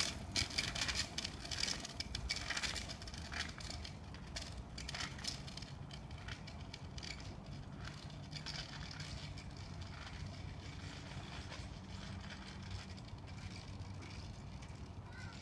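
Bicycles rolling away over asphalt: irregular crackling and ticking, loudest in the first few seconds and fading as they go, over a steady low hum.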